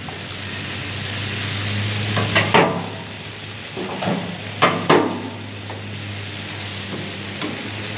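Sausages sizzling steadily on a grill grate over high heat, with two pairs of sharp clicks, about two and a half and five seconds in, as they are turned with tongs.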